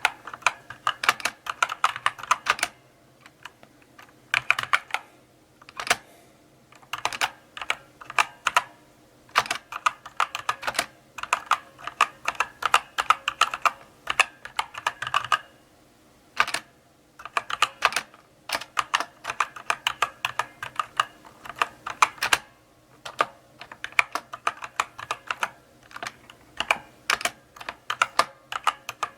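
Mechanical keyboard being typed on slowly: runs of sharp key clicks broken by short pauses, the longest about three seconds in.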